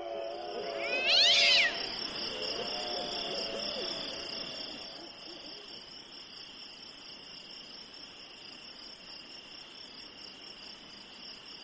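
Night-time ambience sound effect: crickets chirring steadily, with one short, loud animal yowl that rises and falls in pitch a little over a second in. Low wavering tones fade out over the first few seconds.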